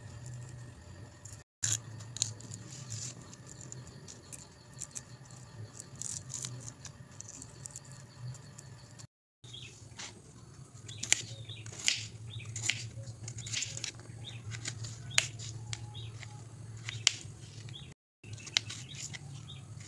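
Quail eggshells cracking and being peeled by hand, then a knife working through peeled raw potatoes on a plastic cutting board: scattered sharp clicks and taps over a steady low hum.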